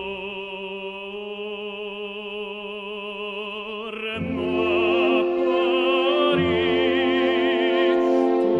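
Opera aria with orchestra: a singer holds one long note with vibrato, then moves on to a new note about four seconds in, singing the word "cor".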